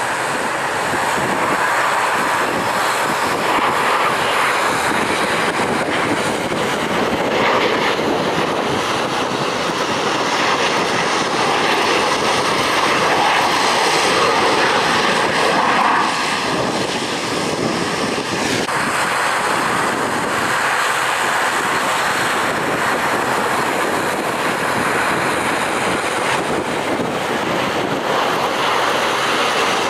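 F/A-18 Hornet fighter jets' twin turbofan engines on landing approach: loud, continuous jet noise with a thin whine through the middle that cuts off sharply.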